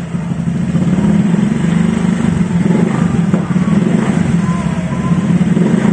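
Honda Vario 150 scooter's single-cylinder four-stroke engine running through an ABF Racing 'standar racing' aftermarket exhaust, a steady low exhaust note that grows a little louder about a second in.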